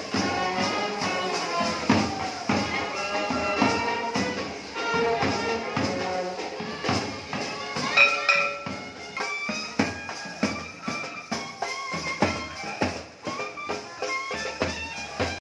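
Band music: wind instruments play a melody over steady percussion beats.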